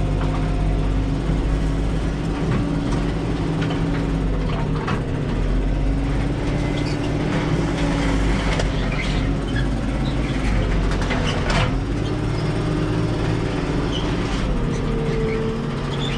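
Zetor tractor's diesel engine running, heard from inside the cab, its pitch rising and falling a little as the driver manoeuvres. Several sharp knocks and rattles stand out over it.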